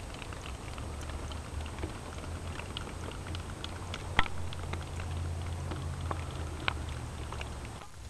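Water dripping and pattering on a wet, mossy rock face: many small irregular drips over a low steady rumble, with two sharper clicks about four and six and a half seconds in.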